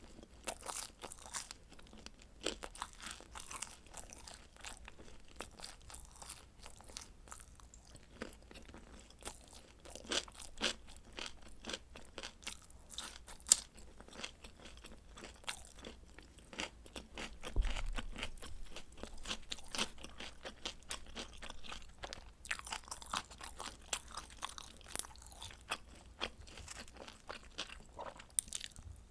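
Pizza being bitten and chewed, with many small, irregular crisp crunches from the crust. There is one low thump about two-thirds of the way through.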